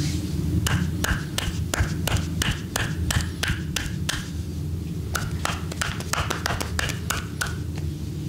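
Percussive massage strokes: hands slapping on skin in a quick, even rhythm, about three a second, then after a short pause a faster run of about four to five a second, over a steady low hum.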